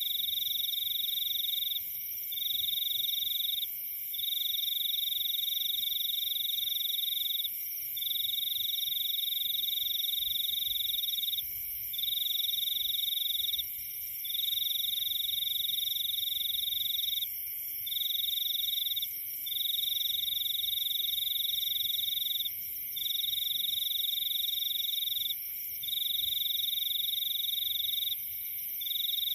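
Tropical forest chorus of calling frogs and insects. One loud, high, even trill runs in stretches of one to four seconds with short breaks, over steady higher and lower droning calls.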